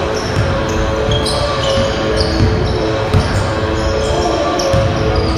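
Basketball dribbling on a hardwood gym floor, with repeated low thuds and frequent short, high sneaker squeaks as players cut and stop.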